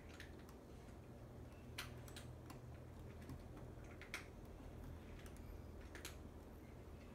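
Faint, scattered clicks and taps, about five in all, of small plastic parts being handled, over a low steady hum.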